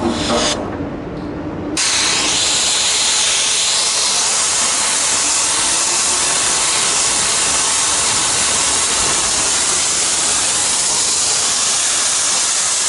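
High-pressure water lance jetting onto a rusty steel deck, water only with no sand in the stream. A loud steady hiss cuts in suddenly about two seconds in, after a quieter stretch with a low hum.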